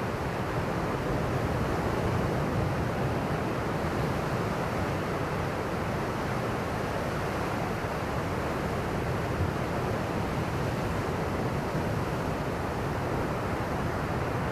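Steady roar of ocean surf, with typhoon swell mixed into the waves, as an even rush of noise with no single crash standing out.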